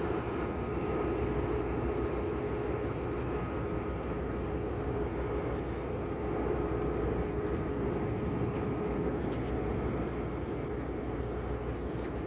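Steady engine drone of ship machinery carried across the water, an even rumble with a faint constant hum that does not rise or fall.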